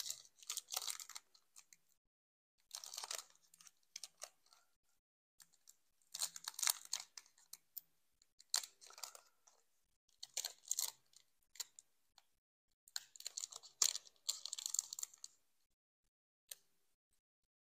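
Foil wrapper of a Pokémon card booster pack crinkling in about six short bursts, with pauses between, as fingers work at tearing open a stubborn pack.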